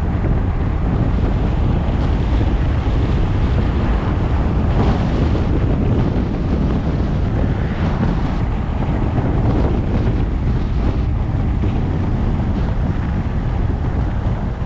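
Wind rushing over a GoPro 7's microphone on a car driving along the road: a loud, steady rush and rumble that swells a little now and then.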